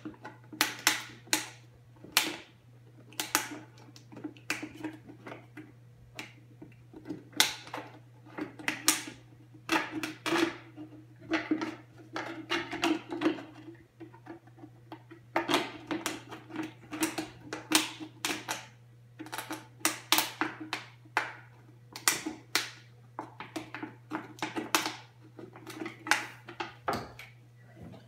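A clear plastic bottle crackling and clicking as it is worked through a handheld bottle cutter and sliced into a long strip. The sharp crackles come in irregular clusters, a few a second at times, over a steady low hum.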